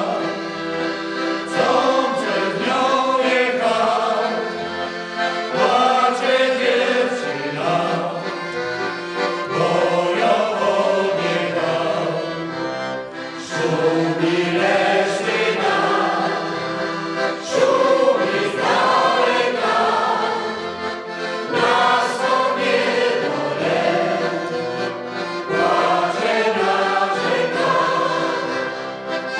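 Folk choir singing a traditional Polish song with accordion accompaniment.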